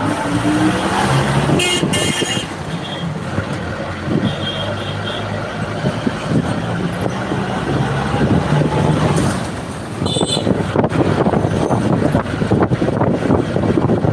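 Bus engine running as the bus drives along a road, heard at an open side window, with traffic noise. Short high horn toots sound about two seconds in, again around four to five seconds, and near ten seconds. From about ten seconds on the noise turns rough and crackly.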